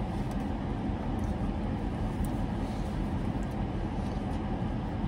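Steady rumble and hiss inside a parked car's cabin: the engine idling with the air conditioning blowing, with a few faint clicks.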